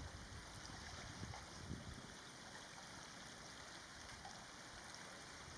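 Faint, steady background hiss with a few soft low flutters, and no distinct bird calls.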